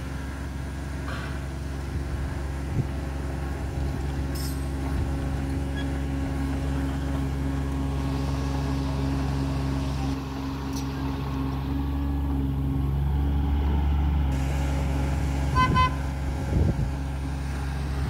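Komatsu PC30-5 mini excavator's three-cylinder 3D84 diesel engine running steadily while the machine digs and moves its arm, getting somewhat louder through the middle. A couple of brief sharper knocks near the end.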